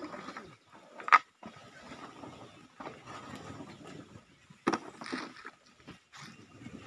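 Irregular rustling and scraping as waste is raked off a garbage truck, with a sharp knock about a second in and another near five seconds.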